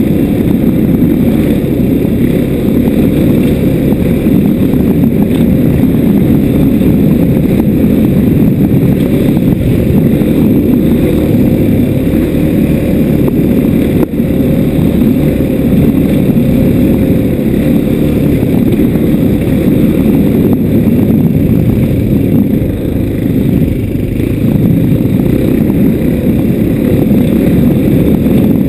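Motorbike ridden along a bumpy dirt track: a loud, steady low rumble of engine and wind on the microphone, with a brief dip about halfway through.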